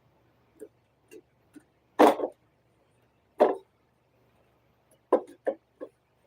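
Sharp clacks and knocks of hard plastic parts and tools being handled while a PS5 console is taken apart: two loud knocks about two and three and a half seconds in, then a quick run of smaller clacks near the end.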